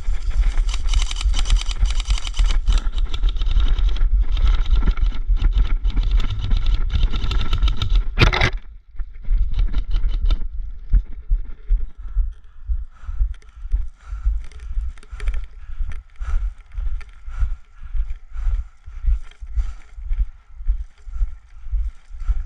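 Footsteps and rustling of clothing and gear close to a body-worn microphone. For about eight seconds there is heavy rustling and thumping, then a sharp scrape, then steady walking steps at about two a second.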